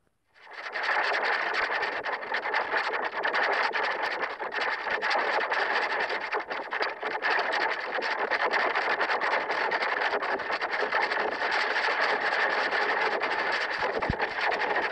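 Harsh, continuous crackling noise, steady in level, starting about half a second in.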